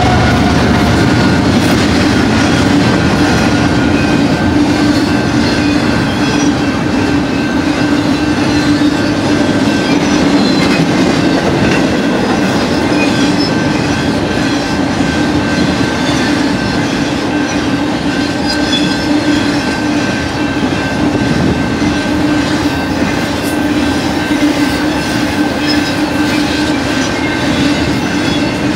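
Intermodal freight cars of a BNSF train, double-stack container cars and trailers on flatcars, rolling past at speed. Steady, loud rumble of wheels on rail with clickety-clack and a steady whining tone.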